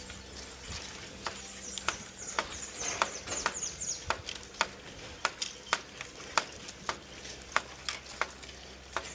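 Dry brush and debris being pulled and cleared: irregular sharp snaps and crackles with some rustling, the rustling heaviest a couple of seconds in.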